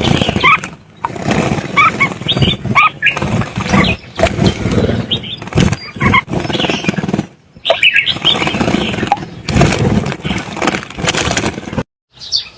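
Small birds chirping in quick, repeated short calls over a loud, rough rumbling noise that comes and goes. Near the end the sound cuts out abruptly for a moment.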